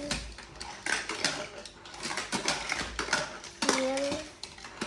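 Plastic magnetic building tiles clicking and clacking as they are handled and set into place, with a child's drawn-out "here" near the end.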